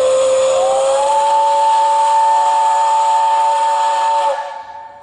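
Steam whistle of the 8620-class steam locomotive No. 8630 blowing one long blast: a chord of several notes over a hiss of steam, with a higher note sliding in about a second in. It cuts off near the end.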